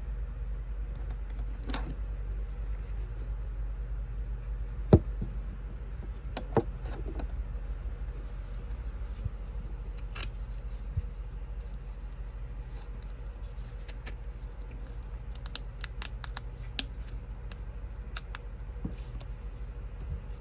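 Handling noise: scattered light clicks and taps, the sharpest about five seconds in, over a steady low hum.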